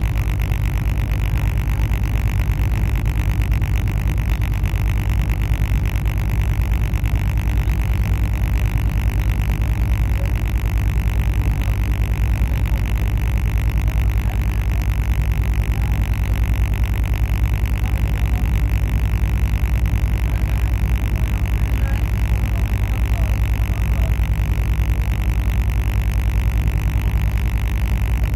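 Steady low rumble and drone of a moving passenger train, heard from on board, with no change in pitch or level.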